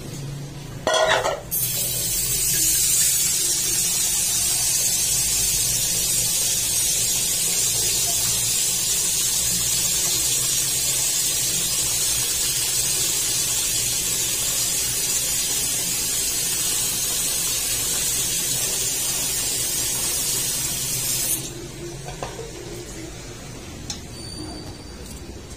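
A short knock about a second in, then tap water gushing into a metal cooking pot, filling it with water for a broth; the flow runs steadily for about twenty seconds and stops suddenly near the end.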